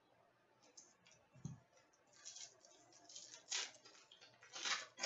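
Hockey trading cards and their packs being handled: a run of short, crisp flicks and rustles as cards are slid and sorted, with a couple of louder ones near the end.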